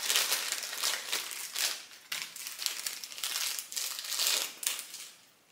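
Clear plastic parts bag crinkling in the hands as it is opened and small hardware is picked out of it, in irregular crackles that die away near the end.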